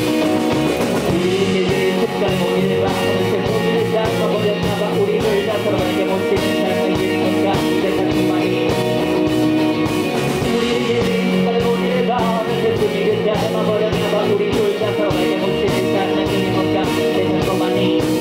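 Live band music: electric guitars, bass guitar and drums playing a rock-tinged backing, with a voice singing over it.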